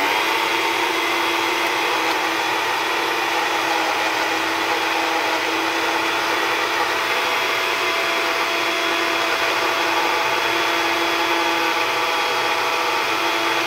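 Breville personal blender motor running steadily at full speed, blending fresh mint and coriander leaves with a little water into a purée. It starts abruptly, with a steady whine over the whir of the blades.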